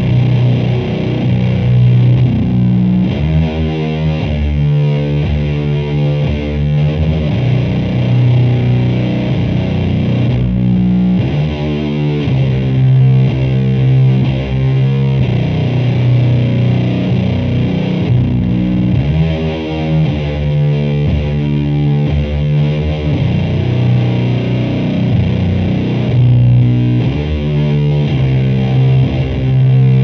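Electric guitar played through a Sabbathi one-knob boosted octave fuzz pedal, a Boss FZ-2-based fuzz with a heavy low-end boost and an octave-up circuit. It plays thick, distorted doom riffs, and a slow riff phrase comes back about every eight seconds.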